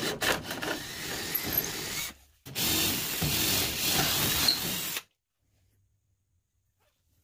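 Cordless drill boring through the aluminum skin of a jon boat's transom, running in two bursts: the first for about two seconds, then after a brief pause a second until about five seconds in.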